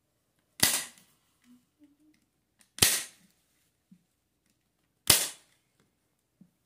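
Hand-held manual staple gun firing three staples through upholstery fabric into a chair seat, about two seconds apart: three sharp snaps.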